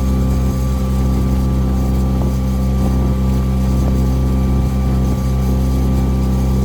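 Cruise boat's engine running steadily, a low, even hum that doesn't change.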